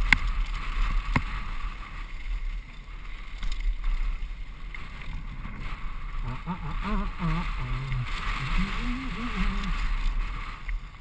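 Wind rushing over a helmet camera's microphone and tyres crunching on loose gravel as a mountain bike descends fast, with a couple of sharp knocks from bumps near the start.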